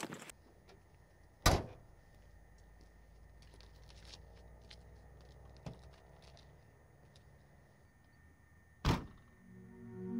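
Mitsubishi Delica van shut up for the drive: the rear liftgate slammed shut about a second and a half in, then the driver's door closing with a second solid thunk near the end, with a faint click in between.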